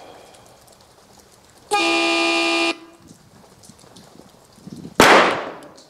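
A steady buzzer tone sounds for about a second as the timed-fire start signal. A little over two seconds later a single .45 ACP shot from a CZ-97 pistol cracks out and rings off the covered range.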